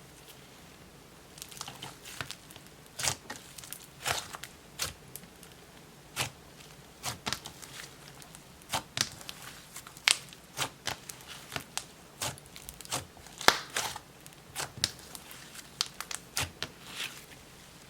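Icy-texture slime being worked by hand, giving off irregular sharp crackling pops and sizzles in quick clusters with short quiet gaps between.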